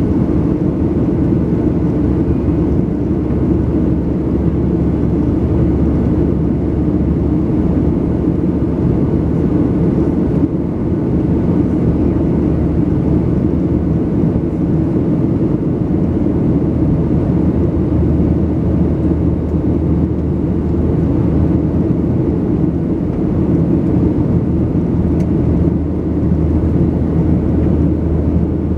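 Steady, loud jet noise heard inside the cabin of a Boeing 737-700: its CFM56-7B turbofan engines and the air rushing past the fuselage make an even, deep rumble.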